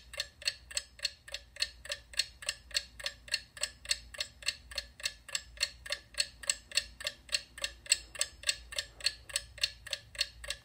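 Clock ticking steadily at about four ticks a second.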